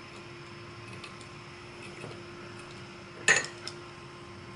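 A short, sharp metallic clatter about three seconds in, with a smaller clink just after, as the soldering iron is lifted out of its metal stand. A steady low hum and hiss run underneath.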